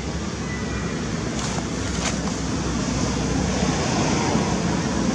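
Steady, even rushing background noise, heaviest in the low end and growing a little louder toward the end, with a few faint clicks.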